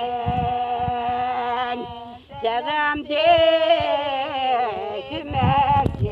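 A voice singing long, held notes that waver and glide, in phrases of a second or two with short breaks between them. Low thumps come in near the end.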